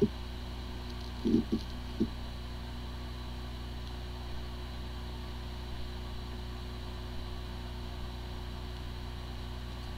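Steady mechanical hum with a faint even hiss, with a few short muffled sounds about a second and two seconds in.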